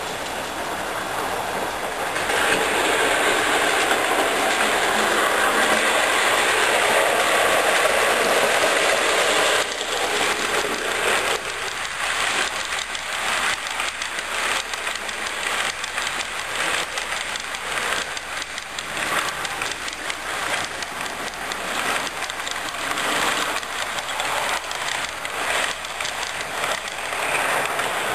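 OO gauge model train running past on the track: a steady rumble builds over the first couple of seconds and holds, then about ten seconds in it gives way to a quick run of clicks as the coach wheels pass over the rail joints, thinning out near the end.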